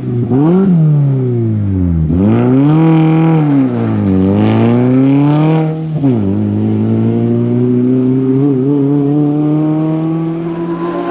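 Rally car engine at full load, its revs climbing and dropping several times in the first six seconds, then rising slowly and steadily to the end.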